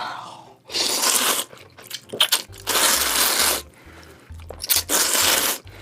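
Noodles of meat jjamppong (spicy Korean-Chinese noodle soup) being slurped up close to the microphone: three long slurps of about a second each, with small wet clicks of chewing between them.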